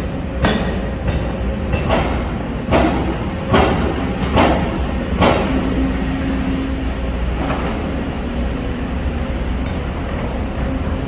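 Excavator-mounted low-noise hydraulic breakers working concrete over the steady drone of the excavators' diesel engines. Sharp knocks come roughly once a second for the first five seconds, then the knocks thin out and a steady hum carries on.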